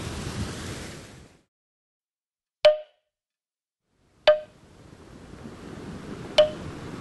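Surf noise fades out to silence, then three sharp wood-block knocks sound about two seconds apart. Soft waves wash back in after the second knock.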